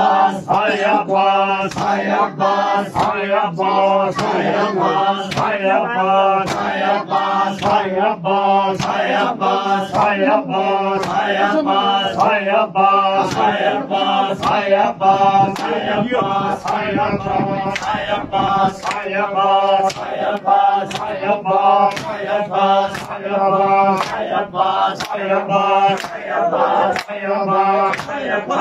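Group of men chanting a noha in unison over a steady low drone, with sharp, regular slaps a little more than once a second: the beat of standing chest-beating matam.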